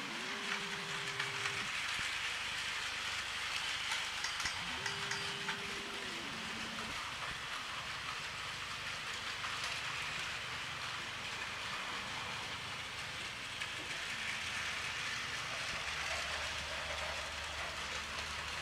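Battery-powered Plarail toy trains running on plastic track: a steady whir of the small motors and wheels clattering over the rails. A short tone sounds twice, near the start and about five seconds in.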